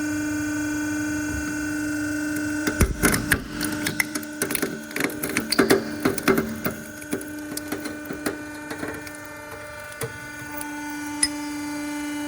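A hydraulic press's pump hums steadily. About three seconds in, a rapid run of loud cracks and snaps lasting about four seconds comes as the object under the ram breaks apart. After that the hum carries on, with a couple of single clicks.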